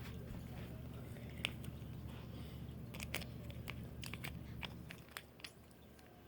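Scattered light clicks and taps from small objects being handled, over a low steady hum that drops off about five seconds in.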